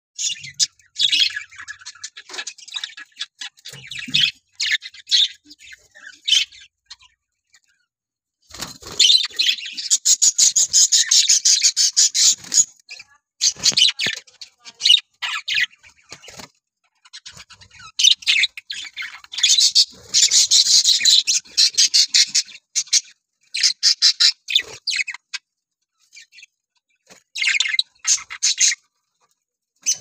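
Budgerigars chattering and chirping in rapid, dense bursts, with a couple of short pauses.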